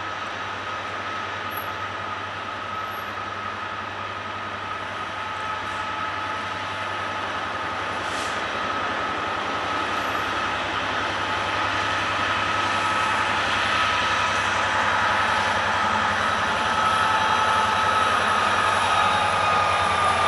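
Direct Rail Services Class 66 diesel-electric freight locomotive approaching at speed, its two-stroke diesel engine and the rumble of the train steadily growing louder. A thin, steady high whine runs above the rumble and dips slightly in pitch near the end as the locomotive comes close.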